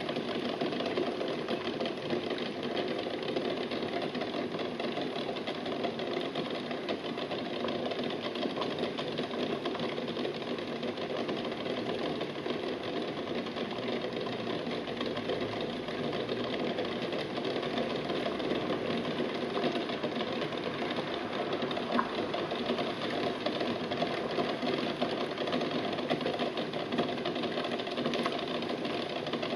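Eggs at a rolling boil in a stainless steel pot: steady bubbling of the water with a fast, continuous rattling as the eggs jostle against the pot.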